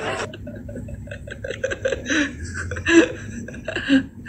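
People chuckling and laughing in short, broken bursts.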